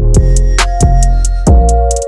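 Background music: a beat with deep bass notes, steady hi-hat ticks and held keyboard chords.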